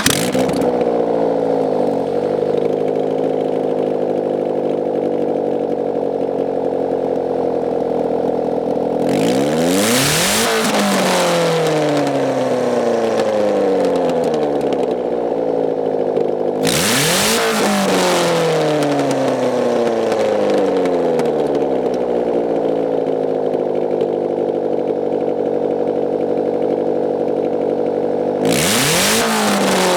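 1993 Saturn SW2's 1.9-litre four-cylinder engine running with no exhaust manifold, the exhaust ports open to the air, in first gear with the drive wheels lifted. It is revved hard three times, each rev climbing sharply toward the red line and then winding slowly back down.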